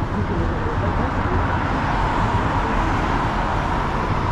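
City road traffic at a wide intersection: a steady hum of passing vehicles with a low rumble, growing somewhat louder through the middle as vehicles, among them a city bus, go by.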